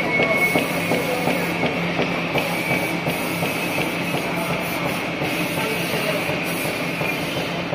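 Flatbed label die cutting machine running: a dense, steady mechanical clatter from the press and web feed, with small irregular ticks over a constant hum.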